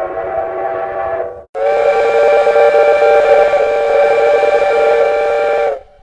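Steam locomotive whistle blowing several steady tones at once: a short blast that cuts off about one and a half seconds in, then a long steady blast of about four seconds.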